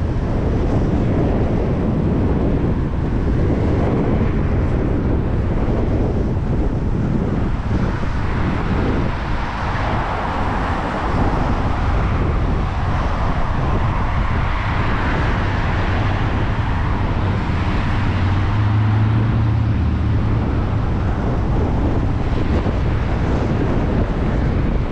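Strong wind buffeting the microphone as a constant low rumble, with road traffic going past. A hiss swells and fades in the middle, and a vehicle engine's low hum shows near the end.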